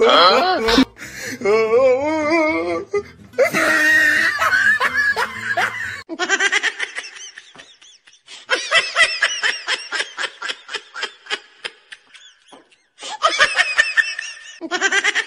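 Laughter: a long run of quick, repeated laughs with short breaks, after a few seconds of wavering high-pitched vocal sounds.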